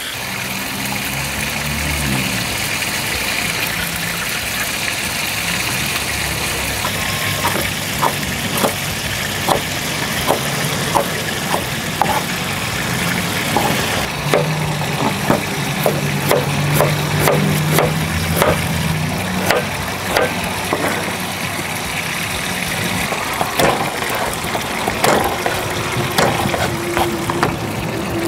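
Mackerel sizzling in a frying pan at first, then a chef's knife slicing ginger on a plastic cutting board: a long, uneven run of sharp taps, one or two a second, over a steady low engine-like hum.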